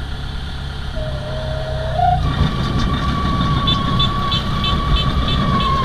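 Kubota DC-70 combine harvester's diesel engine running, with a steady whine that steps up in pitch and grows louder about two seconds in. A quick run of high ticks sounds in the middle.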